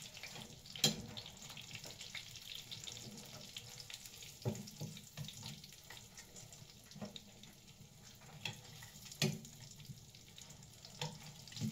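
Food sizzling in a frying pan on a gas stove, a steady hiss broken by a few sharp clicks of metal tongs against the pan as the pieces are turned.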